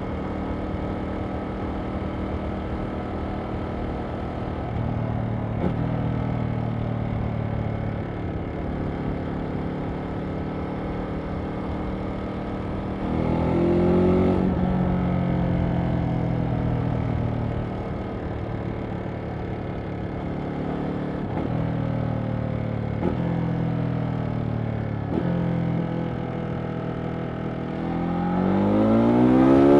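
2023 Ducati Monster SP's 937 cc L-twin engine heard from the rider's seat while cruising at a steady throttle. About halfway through the revs briefly rise and fall back. Near the end the engine pulls hard, its revs climbing steeply under acceleration.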